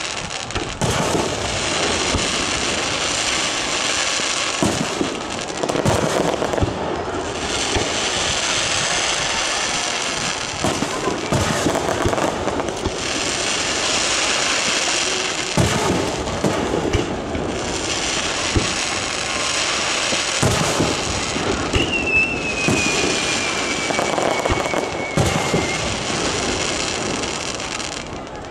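Fireworks display: aerial shells bursting in a dense run of bangs over a continuous crackling hiss. A thin falling whistle sounds about three-quarters of the way through.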